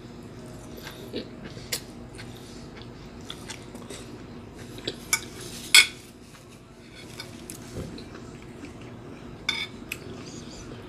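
Close-up eating sounds: chewing a mouthful of asparagus, with a metal fork clicking and scraping on a ceramic plate. Scattered sharp clicks, the loudest just past halfway.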